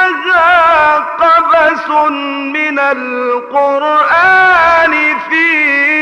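A man's unaccompanied voice chanting an Egyptian ibtihal, an Islamic devotional hymn. He holds long drawn-out notes and ornaments them with wavering turns and bends, pausing briefly between phrases.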